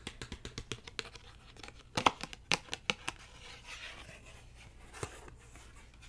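Quick, light tapping that fades out, then a few sharper taps and a soft papery rustle from handling tarot cards and paper.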